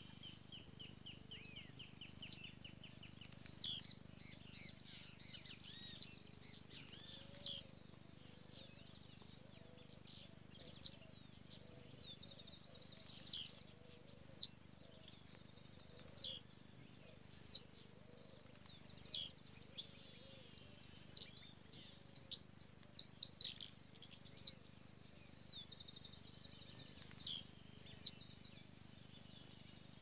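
Small songbirds calling: sharp high notes that sweep downward, repeated every second or two, with short trills and a quick run of ticking notes between them.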